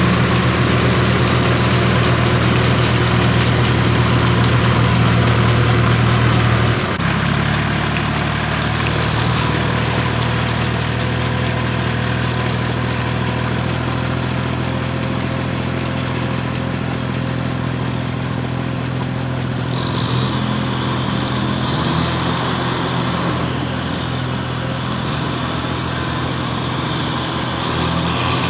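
Old Kubota tractor's diesel engine running steadily as the tractor pulls a leveling board through a flooded paddy on iron cage wheels. About seven seconds in, the engine note shifts slightly and gets a little quieter.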